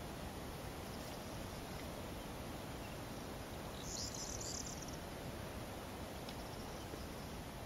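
Corn bunting singing one short, high song phrase about four seconds in, over steady background hiss.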